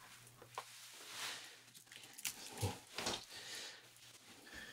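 Faint rustling and soft handling noises from cloth-gloved hands picking up a wristwatch with a steel bracelet, with one soft knock a little past halfway.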